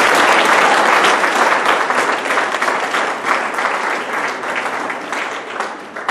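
Audience applauding, loudest at the start and gradually dying away toward the end.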